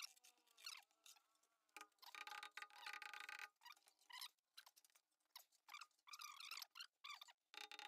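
Near silence, with only very faint, indistinct background traces.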